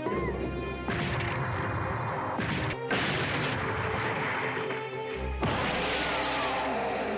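Cartoon crash sound effects: four loud smashes of a structure breaking into splintered wood, over background music.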